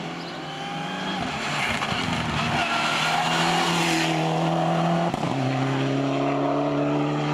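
Mitsubishi Lancer Evolution rally car's turbocharged four-cylinder engine at full throttle as the car drives past up a hill climb. The engine note climbs and breaks off briefly about five seconds in for an upshift, then pulls on at a lower pitch.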